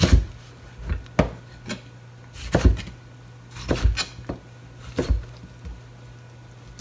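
Kitchen knife chopping a bundle of boiled komatsuna (Japanese mustard spinach) on a cutting board. About a dozen sharp knocks come at uneven intervals, some in quick pairs.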